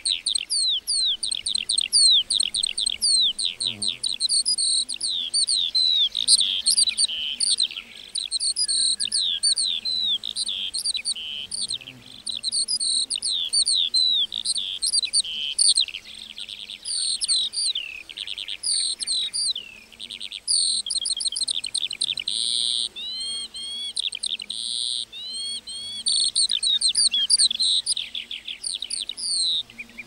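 A lark singing a long, fast run of rapid chirps, slurred notes and trills, broken only by short pauses every few seconds.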